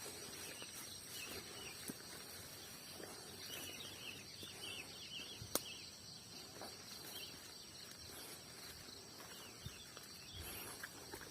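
Outdoor nature ambience: a steady high-pitched insect drone with a run of short bird chirps in the first half, and one sharp click about halfway through.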